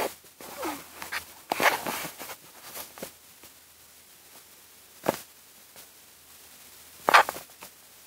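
Rustling and knocking from a phone being handled inside a car, with a sharp click about five seconds in and a louder one about seven seconds in.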